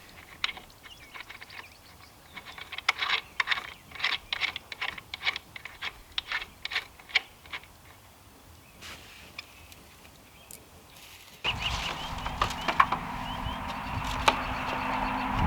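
Rapid, irregular light clicking and clinking for several seconds, then a motor starts abruptly about eleven seconds in and runs steadily.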